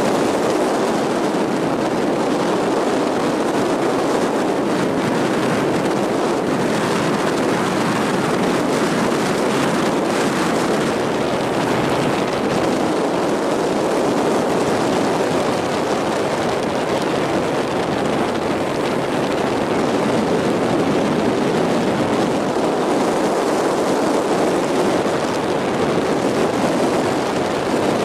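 Regal Fastrac 2100LSR bowrider running at a steady planing speed: the drone of its Volvo Penta 4.3 GXi V6 sterndrive engine mixed with the rush of water in the wake and wind, holding at a constant level.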